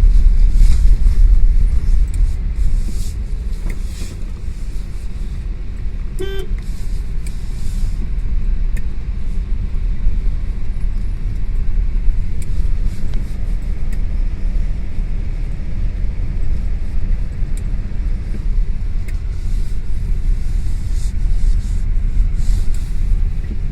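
Steady low rumble, with one brief horn toot about six seconds in.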